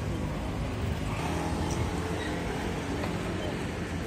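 Steady city street traffic noise: cars and motor scooters running on a busy road.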